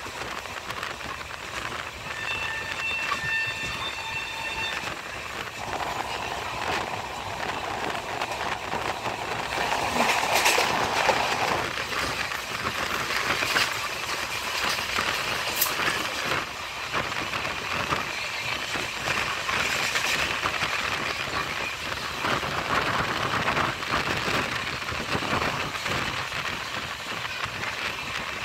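Running noise of a train heard from on board, with wheels on rail and wind. A second electric suburban train on the adjacent track passes close by, and the sound swells about ten seconds in. A high steady tone sounds for a few seconds near the start.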